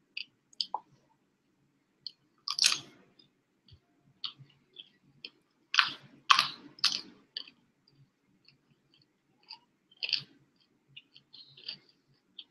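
A person chewing mouthfuls of broccoli: crunching and small wet clicking mouth sounds in irregular bursts, with a few louder crunches.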